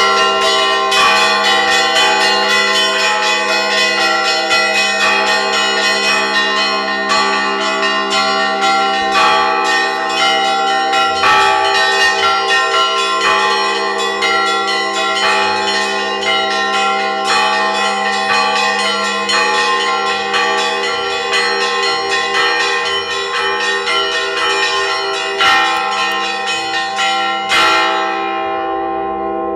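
Orthodox church bells rung in a full peal (zvon): small bells struck rapidly over the steady hum of larger bells. Near the end the quick strikes stop and the bigger bells are left ringing on.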